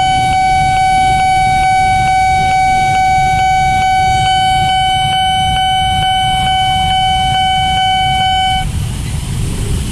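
Railway level-crossing warning alarm sounding one steady, unbroken tone while a train passes, cutting off suddenly near the end once the crossing clears, over the low rumble of the passing train and idling traffic.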